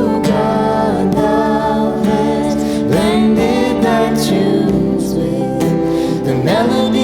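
A song performed by a vocal group: singing with sliding pitch glides over sustained instrumental accompaniment.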